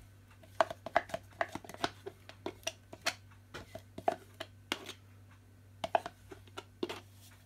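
A wooden spoon scraping and knocking inside a yogurt pot as thick soya yogurt is spooned out into a mixing bowl: a run of short, irregular taps, a few each second.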